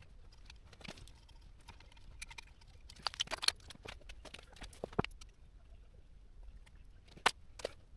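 Scattered light clicks and taps of hands handling small metal parts and wiring on a motorcycle frame during dismantling. There is a quick cluster of clicks about three seconds in, and single sharp clicks near five and seven seconds.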